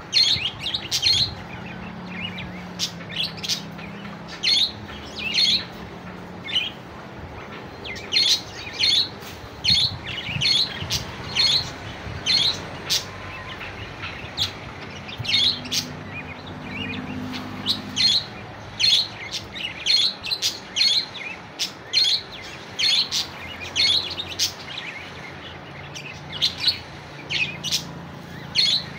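Budgerigars chirping: short, sharp, high chirps in quick clusters, repeated again and again.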